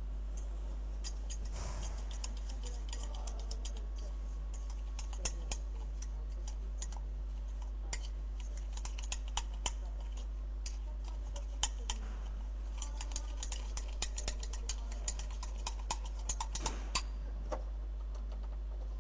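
Irregular light clicks and taps over a steady low hum, sparse at first and coming in quick clusters in the second half.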